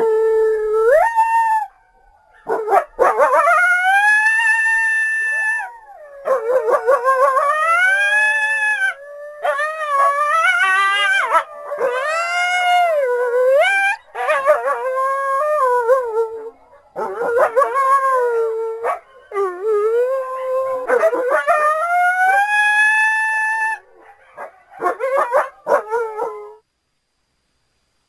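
Creature sound effect for Archaeocyon, an extinct early wolf-like canid: about nine drawn-out canine howls and whines in a row, each bending up and down in pitch.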